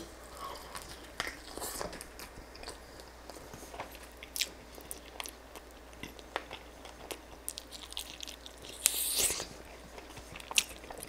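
Close-up mouth sounds of eating a crispy-skinned chicken drumstick: biting, chewing with small wet clicks and crunches, and one louder, longer sound about nine seconds in.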